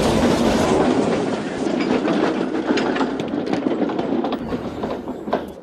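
Train running along rails, wheels clattering with irregular clicks, fading away near the end.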